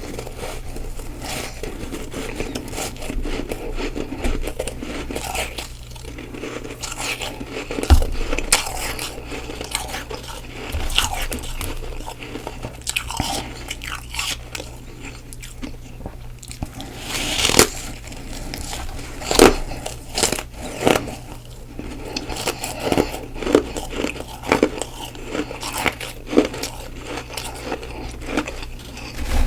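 Soft freezer frost being bitten and chewed in big, messy mouthfuls: a run of crunches, with a few louder bites now and then.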